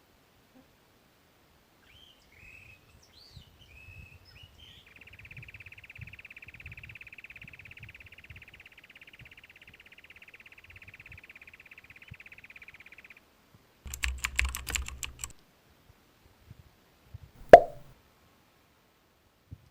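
Rusty-backed antwren (Formicivora rufa) giving a few short calls, then its song: one long, even, fast trill lasting about eight seconds. Afterwards there is a second or so of clattering, then a single sharp knock, the loudest sound of all.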